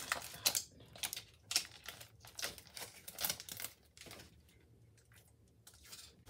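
Plastic shrink wrap crinkling and tearing in quick, irregular bursts as gloved hands peel it off a hot ceramic mug, dying away to near quiet about four seconds in.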